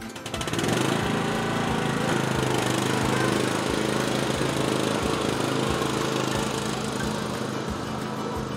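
MTD Gold lawn tractor's engine running steadily as the tractor drives off, coming in suddenly about half a second in and growing a little fainter near the end as it moves away.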